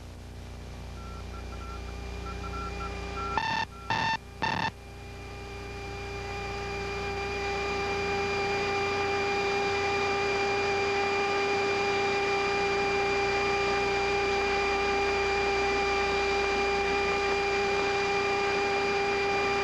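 Fighter cockpit intercom audio from an F-16's HUD tape recorder: a steady electrical hum under a hiss that rises over the first several seconds and then holds. A faint run of beeps comes in early, and three short, loud tones follow about three and a half seconds in.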